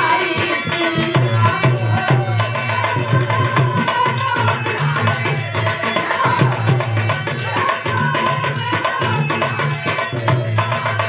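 Live birha folk music: a steady hand-drum beat under a sustained melody line, with percussion clicks in between.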